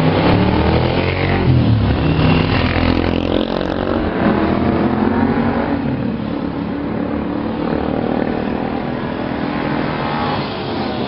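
Vintage motorcycle engines running as the bikes ride past, with the engine note rising and falling as they work the throttle.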